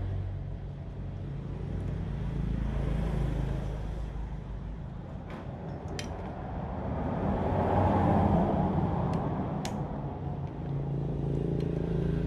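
A low, steady engine hum that swells about seven to nine seconds in and then eases off, with a few sharp clicks.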